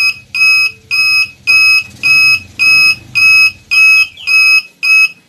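An old motorcycle foghorn and a beeping signal-light flasher relay sounding together as a DIY anti-theft alarm under test. Loud, high, steady-pitched beeps come about twice a second, about ten in all.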